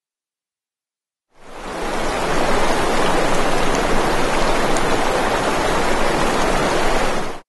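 Dead silence, then a steady rushing noise that fades in about a second and a half in and cuts off abruptly at the end.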